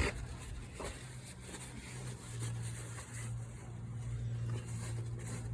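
A steady low mechanical hum, growing louder about two seconds in, with a few faint taps early on.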